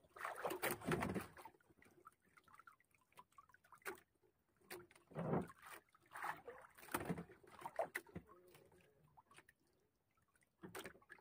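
Faint, irregular water sloshing and lapping against the hull of a small outrigger boat, with scattered light knocks.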